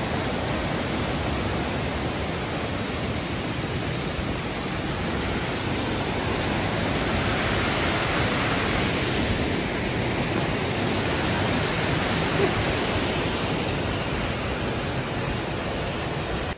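Dingmans Falls rushing: a steady, unbroken roar of water pouring over rock, close to the microphone.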